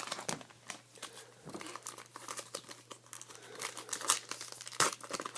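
Plastic-foil trading card pack wrappers crinkling and tearing as packs are opened and handled, in irregular sharp crackles with the loudest one near the end. A steady low hum runs underneath.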